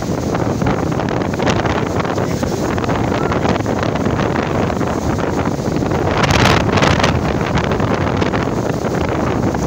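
Strong dust-storm wind buffeting the microphone, a loud continuous rumble with a harder gust about six seconds in.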